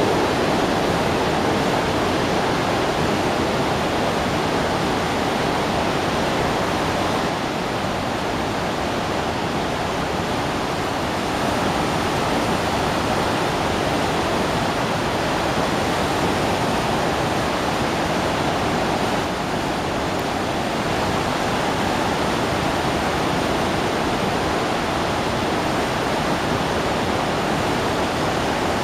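Sarpsfossen, a very large river waterfall on the Glomma, running in high flood: a loud, steady, unbroken rush of falling water.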